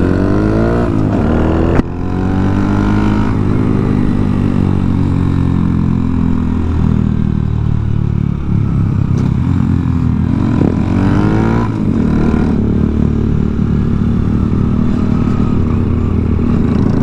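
Honda Monkey's single-cylinder engine pulling away under throttle. The pitch climbs over the first two seconds and drops sharply at an upshift; it then runs steadily at cruise, and climbs and shifts again about eleven seconds in.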